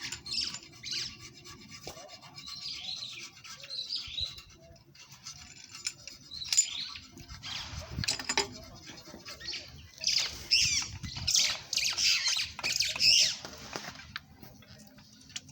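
Birds chirping and squawking in short, wavering high calls, busiest in the second half, with a sharp knock about eight seconds in.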